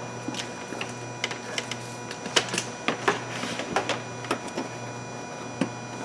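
Irregular small clicks and taps of oscilloscope test leads and connectors being handled and clipped on, as a 20-to-1 attenuator and probe lead are hooked to a fuel injector circuit. A steady low hum runs underneath.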